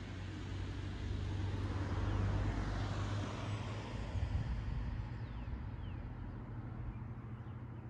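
Road traffic: a vehicle passing on a nearby road, its noise swelling about two to three seconds in and then easing away, over a steady low rumble.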